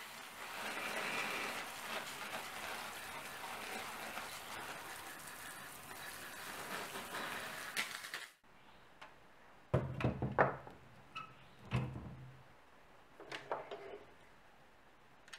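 Steady hiss of a handheld sprayer misting liquid onto the rusty sheet-metal lantern for about eight seconds, ending abruptly. After it comes a short run of hard knocks and clatters as a rotary tool is taken off a wooden pegboard peg.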